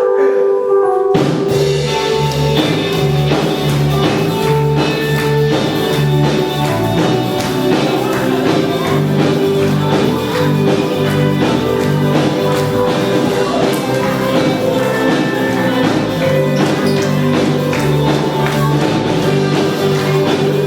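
Live gospel band playing, with a bass line and percussion coming in about a second in and then keeping a steady beat.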